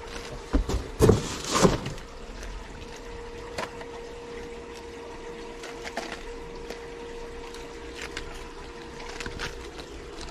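Packaged fishing lures being handled and hung on display hooks: a burst of loud plastic rustling and knocks about a second in, then scattered light clicks. Behind it, water trickling steadily over a constant hum.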